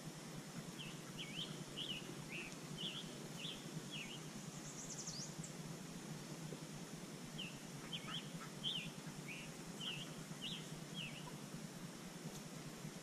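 A wild songbird sings two runs of short, quick chirps, one in the first few seconds and one from about halfway through, with a single higher falling note between them. Underneath is a steady low hum of background noise.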